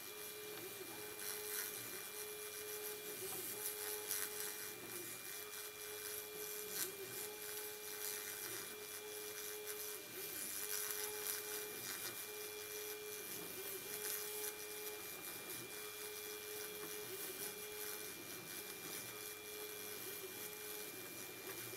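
OpenBuilds C-beam CNC router engraving a foam board: the spindle gives a steady high whine over a hiss of cutting, while the stepper motors hum a lower tone that runs for a second or so at a time, breaking off and bending in pitch each time the carriage changes direction.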